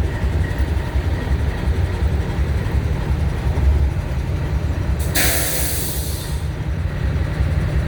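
Freight train of grain hopper cars with a low, steady rumble. About five seconds in comes a single burst of air-brake hiss lasting just over a second.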